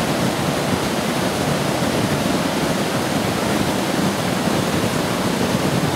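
Loud, steady rush of fast white water from the river below the falls, an even noise with no breaks.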